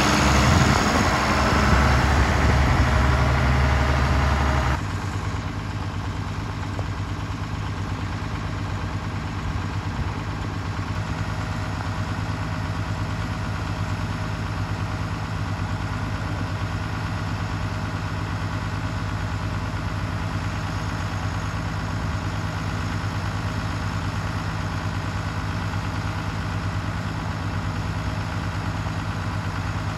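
1977 International 986 tractor's six-cylinder turbo diesel running, louder for about the first five seconds, then dropping abruptly to a steady idle.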